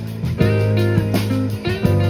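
Live band playing: guitar over a drum kit, with sustained low notes underneath and drum or cymbal hits.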